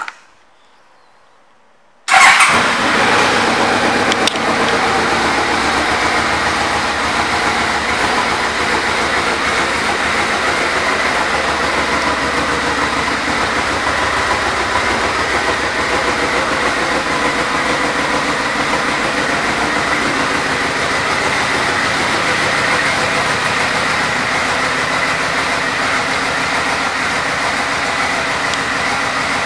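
A 2008 Yamaha Royal Star Tour Deluxe's V4 engine starts about two seconds in and then idles steadily.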